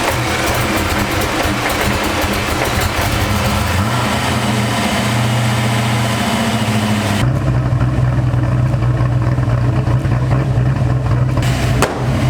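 Ford Fox-body Mustang's engine running steadily. About seven seconds in, the sound changes abruptly to a deeper, stronger low drone with less hiss.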